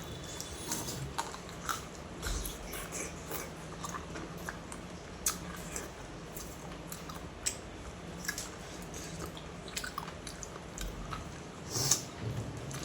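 A person chewing and biting food close to the microphone. The mouth sounds come as many short, irregular clicks, with one louder one near the end.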